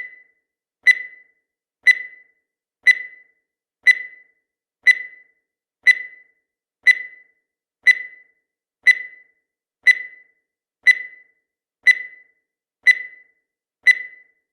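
Countdown timer sound effect: a short, sharp beep once a second, each quickly fading, steady through the whole stretch.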